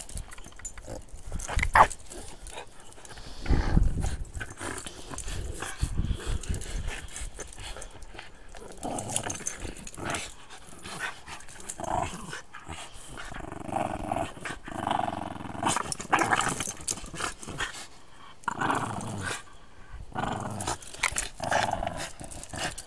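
Dogs growling on and off, mixed with scattered knocks and rustles.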